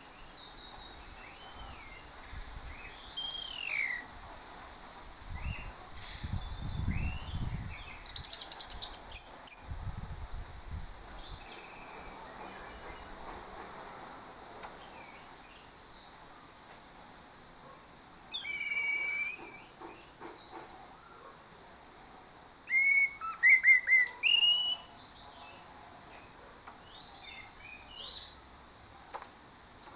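Orange-headed thrush singing: varied whistled phrases with rising and falling glides, broken by pauses. The loudest part is a rapid run of notes about eight seconds in, with more bursts in the middle and near the end.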